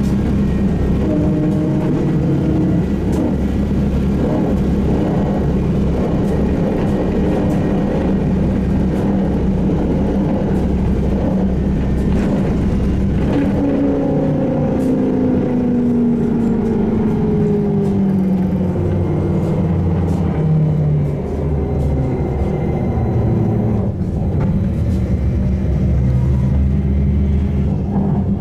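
SVARZ-MAZ-6235.00 trolleybus running along, heard from inside: a steady electric hum over road rumble. About halfway through, the traction motor's whine falls steadily in pitch over several seconds as the trolleybus slows down.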